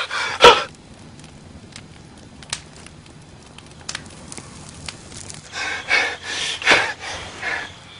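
A person's non-word vocal sounds: a short grunt at the start, then a quiet stretch with a few faint clicks, then several rough, breathy exhales near the end.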